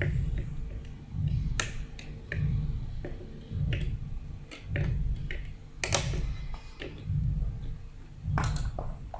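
Sharp irregular clicks and taps of needle-nose pliers against a plastic fan-blade hub and its fitting on the motor shaft, over a low, even bass beat about once a second.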